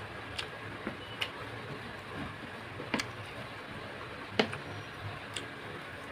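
Eating sounds of a person eating rice and pork fry by hand: a handful of sharp, scattered mouth clicks and smacks over a steady hiss, the loudest about four seconds in.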